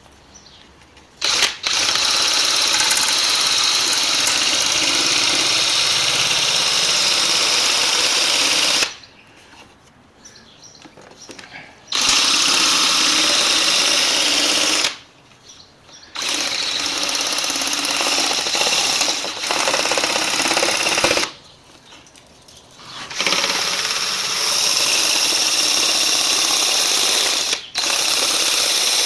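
A hand-held power cutting tool cutting through a thin sheet-metal license plate. It runs in four long bursts of several seconds each, with short pauses between them.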